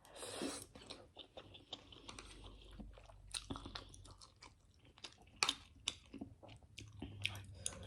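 A person chewing food close to the microphone, with many irregular wet mouth clicks and a short breath out at the very start.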